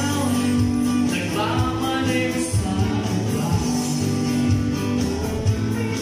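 Live acoustic band playing a song: male singing over acoustic guitar and keyboard chords, with a steady beat of light percussion.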